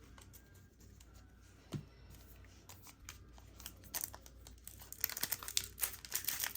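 Pokémon booster pack foil wrapper being handled and torn open, with faint taps of cards at first, then a dense crinkling and tearing from about five seconds in.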